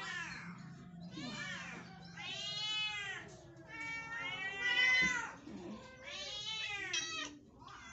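Domestic cats meowing one after another, about six drawn-out meows, each rising and then falling in pitch. The cats are calling for attention while their caretaker is in the room, which she puts down to them wanting food.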